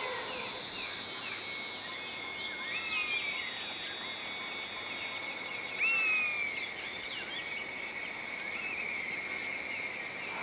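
Natural ambience of insects droning steadily on high notes, with birds chirping throughout and one slightly louder bird call about six seconds in.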